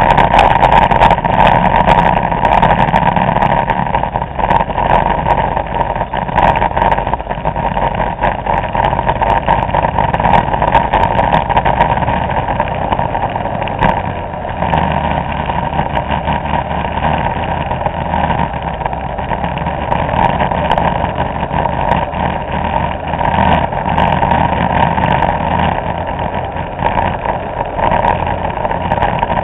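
Vespa scooter engines running at riding speed, with wind rushing over the microphone of a camera held by a moving rider. The sound is steady, dense and loud throughout.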